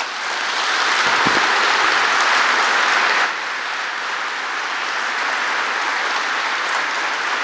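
Audience applauding. The clapping starts all at once, is loudest for the first three seconds, then drops a little and carries on evenly.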